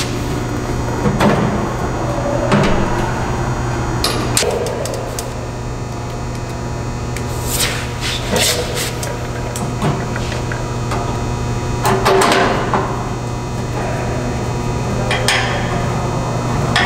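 Scattered knocks and clicks of metal hardware and hand tools as a control box is bolted onto its mounts on a CNC table, over a steady low hum.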